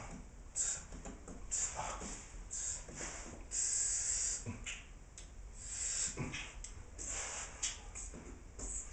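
A man beatboxing: repeated sharp hissing 'tss' cymbal sounds, one drawn out about halfway through, with a few deep kick-drum thumps in an uneven rhythm.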